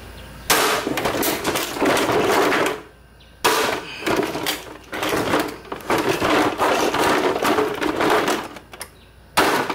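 Heavy machete-style blade hacking into a portable jacuzzi pump's plastic housing: runs of rapid strikes and cracking plastic, starting about half a second in, breaking off near three seconds, then resuming, with one last sharp strike near the end.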